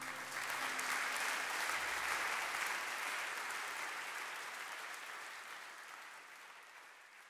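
Audience applause at the close of a live worship song, swelling over the first couple of seconds and then slowly fading away.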